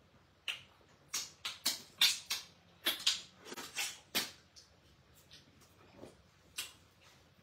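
Mouth noises of people eating stew with their hands: a quick, irregular run of short smacks, slurps and finger-sucking sounds, busiest in the first half, then sparser.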